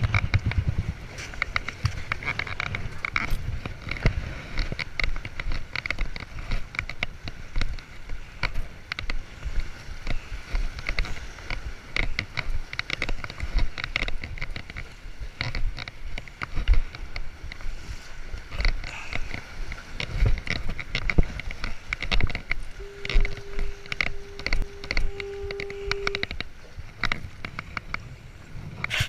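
Lake waves sloshing against the breakwall's stone blocks, with rumbling wind on the microphone and many short scuffs and taps of hands and shoes on the rock. A steady pitched tone sounds for about three seconds near the end, broken twice.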